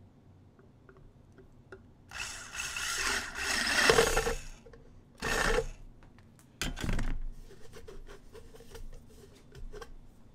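Power drill with a spade bit boring through the bottom of a plastic bottle: one long run of about two and a half seconds, then two short bursts.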